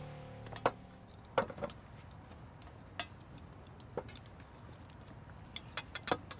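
Light, irregular clinks and taps of eating utensils against bowls, about ten scattered strikes.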